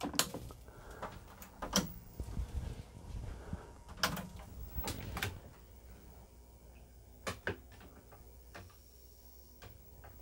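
Scattered clicks and knocks of handling at an electronics workbench, the loudest a cluster about four to five seconds in and a single one a couple of seconds later, over a faint low hum.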